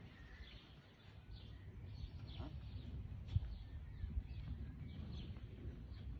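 Faint outdoor ambience: a steady low rumble with scattered short bird chirps, and a few dull thumps, one louder a little over three seconds in.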